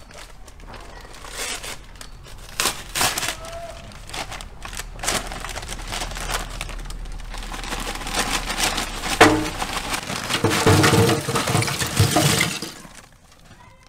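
Paper sack of lump charcoal being rustled and handled, then the charcoal tipped out, clattering into a steel fire pit: a loud first crash about nine seconds in, followed by a dense clatter of lumps that stops shortly before the end.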